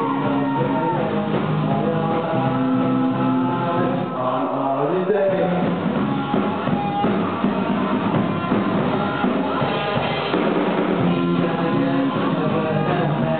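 Amateur rock band playing live: distorted electric guitars and a drum kit under a sung vocal line, with a note sliding up in pitch about four seconds in.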